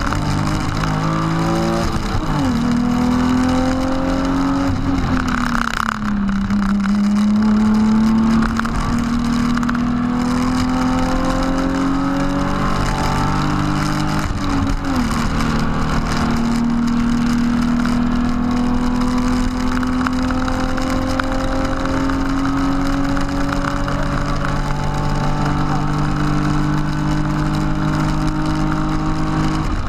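BMW E36 328i straight-six engine heard from inside the cabin, pulling hard under full throttle. It is upshifted twice, about 6 and 15 seconds in, with the pitch dropping at each shift and then climbing steadily as the car gains speed up the straight.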